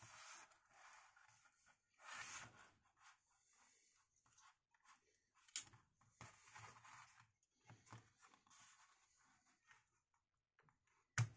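Faint handling noise from a Gigabyte RTX 2080 Windforce graphics card as its cooler is eased off the circuit board: soft scraping and rustling of the plastic shroud and metal, with a few small clicks, the sharpest near the end.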